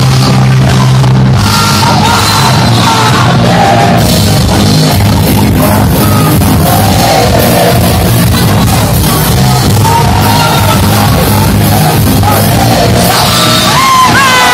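Live rock band playing: a singer over electric guitars, bass guitar and a drum kit, in a loud, rough recording. Near the end, high notes slide downward in pitch.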